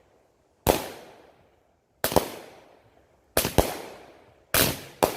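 Shells from a 16-shot consumer firework cake bursting overhead: six sharp bangs, roughly one a second with two close pairs, each trailing off in an echo.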